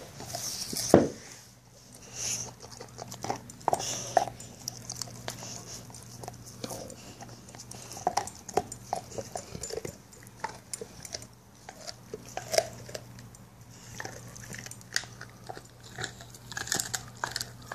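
Pit bull gnawing on a lamb bone: irregular cracks, crunches and clicks of teeth on bone, with one loud crack about a second in.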